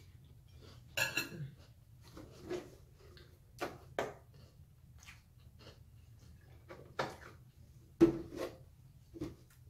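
A metal spoon clinking against a glass cereal bowl and a milk carton being handled and set down on a glass tabletop: a scatter of separate clinks and knocks, the loudest a knock about eight seconds in.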